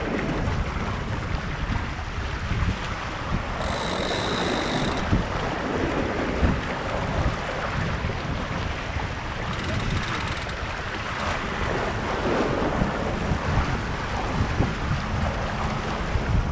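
Wind buffeting the microphone over water rushing along the hull of a sailboat under way. A brief high-pitched buzz sounds about four seconds in, and again more faintly about ten seconds in.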